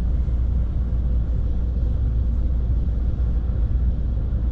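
SRT high-speed train running at speed, heard as a steady deep rumble with a faint even hum above it.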